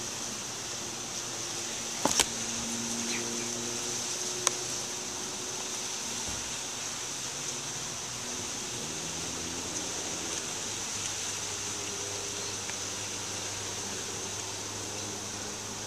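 Steady background hiss with a faint low hum, broken by a sharp click about two seconds in and another about four and a half seconds in.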